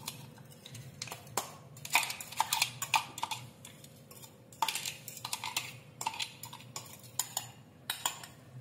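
Metal spoon scraping and knocking inside a steel mixer-grinder jar as crushed sev is emptied into a ceramic bowl: irregular runs of clinks and scrapes with short pauses between them.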